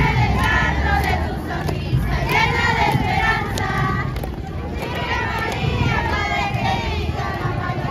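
A crowd of many voices singing together in chorus, with the hubbub of a crowd around it.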